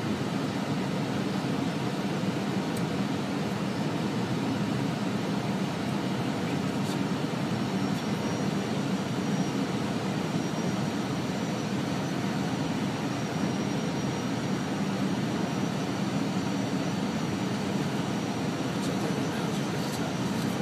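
Steady drone of engines and rushing air inside an airliner cabin, with a faint high whine coming in about eight seconds in.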